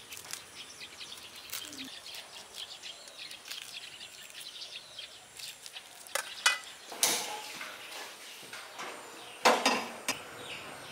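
Small birds chirping for the first half. About six seconds in come a few sharp clicks from a gas stove's knob and igniter. Near the end there is one loud metallic clank with a short ring, as a pot meets the stove.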